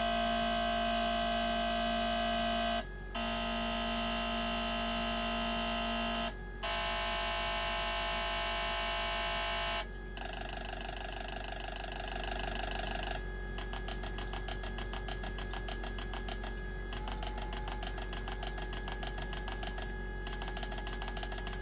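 Mazdaspeed3 2.3 DISI direct-injection fuel injectors firing on a spray-pattern test bench: a loud, steady, high-pitched buzz broken by two short pauses. About ten seconds in the spraying stops and a quieter rapid ticking follows.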